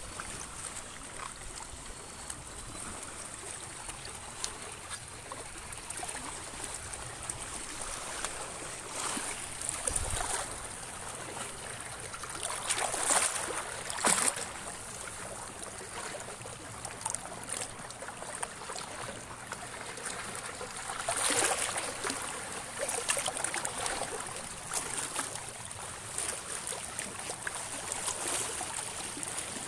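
Small waves lapping and washing against a rocky shore, with a few louder surges of splashing.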